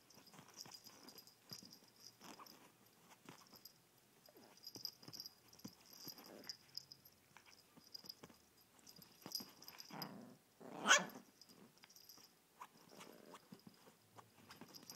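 Chihuahua puppy scratching and digging at a fabric sofa cushion with his paws, a run of short rustling scrapes, with small growling noises. One short, louder bark about eleven seconds in.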